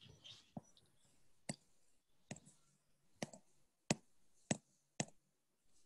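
Computer mouse clicking: about seven sharp, separate clicks, roughly one every two-thirds of a second.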